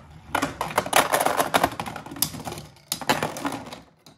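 Two Beyblade Burst spinning tops (Union Achilles and Judgment Joker) clashing in a plastic Beyblade stadium: a fast, dense rattle of clicks and knocks as the tops hit each other and the stadium walls. It dies away near the end as the tops stop and one is knocked apart into its parts.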